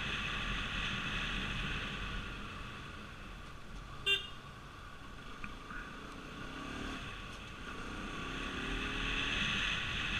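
Steady road and engine noise of a car travelling at speed on an expressway, with a brief high beep about four seconds in.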